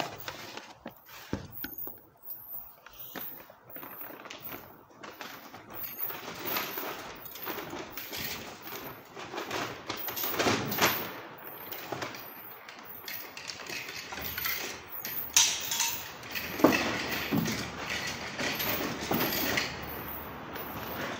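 Rummaging through a large plastic wheeled waste bin: rustling, with irregular knocks and clatter of items being moved about inside it, busier in the second half.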